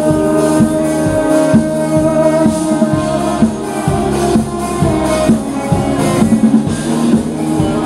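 Live indie rock band playing an instrumental passage: electric guitars and keyboard holding sustained chords over a steady drum beat.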